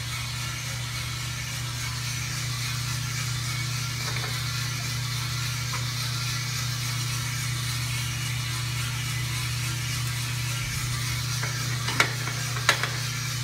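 A 3-kilo US Roaster Corp drum coffee roaster running mid-roast: a steady low drum-motor hum under an even rushing hiss. Two sharp metal clicks come near the end as the sample trier is handled at the front panel.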